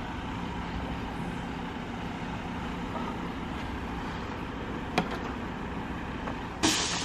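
Steady outdoor background noise with a low hum that stops about halfway, broken by a sharp click about five seconds in and a brief louder scrape near the end, as a thin plastic side skirt is handled against the car.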